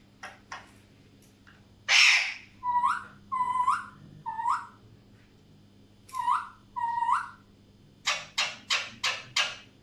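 Alexandrine parakeet calling: a loud harsh squawk about two seconds in, then a series of short calls that each rise sharply at the end, and near the end a quick run of five harsh squawks.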